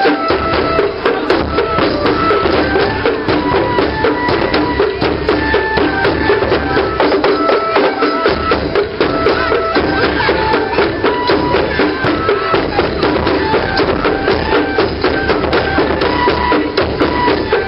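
Japanese festival music: a fue, the transverse bamboo flute, plays a melody of held notes that step up and down, over continuous taiko drumming with many quick strikes.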